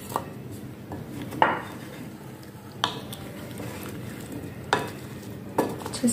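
Wooden spoon stirring boiled chickpeas and potato pieces coated in spices in a glass bowl: a steady soft scraping, with a few sharp knocks of the spoon against the bowl.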